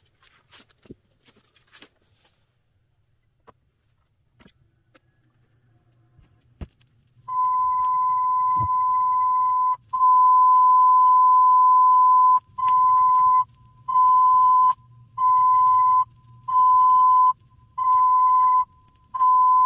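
A 1 kHz test tone played from a test LP on a turntable, starting about seven seconds in after a few soft clicks. It is steady for about five seconds, then turns into a pulsing beep, on and off about once a second, over a faint low hum. The tone plays about 1% sharp, which the owner blames on the record's tone rather than on the quartz-locked turntable speed.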